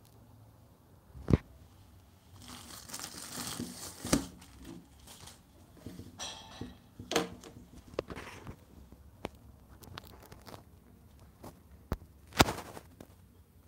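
Plastic mailer packaging crinkling and rustling as a paperback book is lifted and handled, with several sharp knocks as the book and highlighters are set down on the table; the loudest knock comes near the end.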